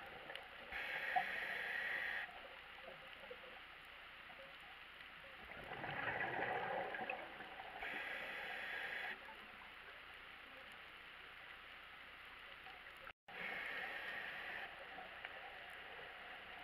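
A scuba diver breathing through a regulator underwater: hissing breaths a few seconds apart, each lasting about a second and a half, with one longer, deeper burst of exhaled bubbles about six seconds in.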